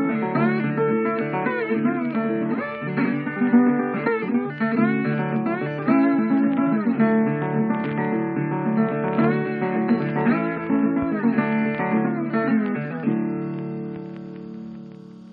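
Blues guitar music, plucked notes with some bent in pitch. About two seconds before the end it settles on a last chord that rings and fades out.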